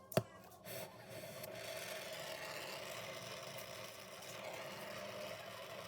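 A sharp click, then a brazing torch flame hissing steadily while copper refrigerant lines are brazed onto a replacement TXV.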